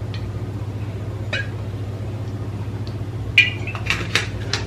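A steady low hum, with a faint tap a little over a second in and a few light clicks and a short ringing tick near the end as an oil bottle is handled over a glass mixing bowl.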